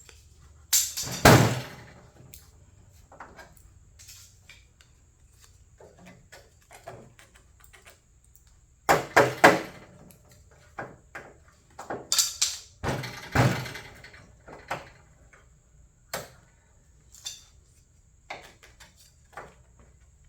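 Sheet-steel hood panel being knocked and shifted into alignment: loud sharp clunks about a second in, again around nine seconds and twice around twelve to thirteen seconds, with lighter taps and rattles between.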